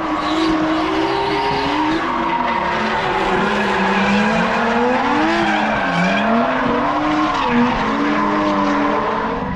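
Drift car engines revving, their pitch rising and falling as the throttle is worked, with tyres squealing as the cars slide.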